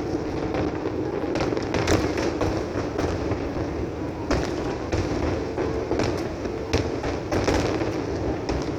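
Aerial fireworks display going off in quick succession: many overlapping bangs and crackles with no pause, picked up on a phone's microphone.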